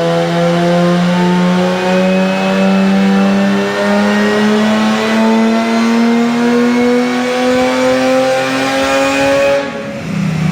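Turbocharged V6 Commodore engine under a long, sustained pull, its pitch climbing slowly and steadily for about nine seconds before the driver lifts off near the end.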